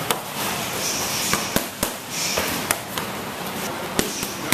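Gloved punches and kicks smacking into focus mitts: about six sharp slaps, irregularly spaced, over gym background noise.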